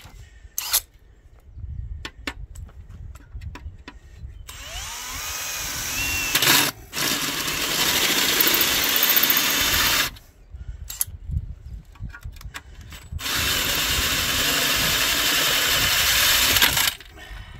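Milwaukee cordless drill turning a 1-3/8-inch Milwaukee Hole Dozer bi-metal hole saw through the steel wall of an old cement mixer drum. There are two long cuts, one of about five seconds with a brief break and one of about three and a half seconds near the end, with scattered clicks between them.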